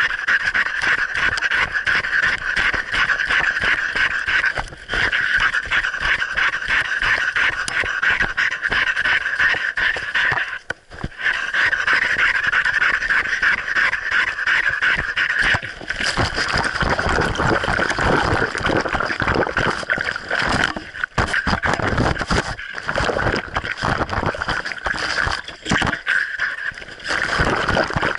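A dog panting hard and fast, heard very close from a camera on its muzzle, mixed with rustling and jostling noise that grows heavier about halfway through as it moves through leaf litter. The panting breaks off briefly once, around a third of the way in.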